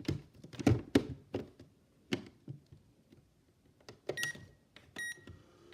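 Toy microwave being operated: a run of sharp plastic clicks and knocks, then two short electronic beeps about four and five seconds in, as its buttons are pressed.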